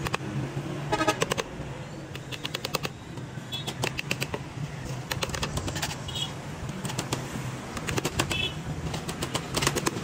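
Clusters of quick sharp clicks and taps, with a few short high chirps in between, over a steady low hum.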